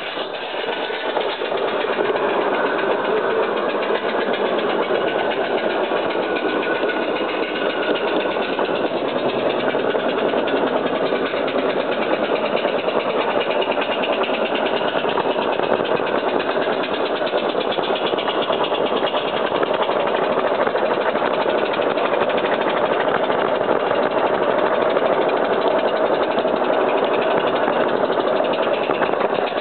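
G-scale live steam locomotive working hard with a heavy train: fast exhaust beats running together into a steady chuff, heard from a wagon right behind it along with wheel noise on the track. It gets louder about a second in.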